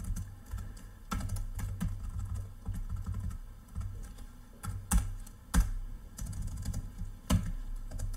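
Typing on a computer keyboard: irregular key clicks, with a few sharper, louder keystrokes about a second in, around five to six seconds in, and again near the end.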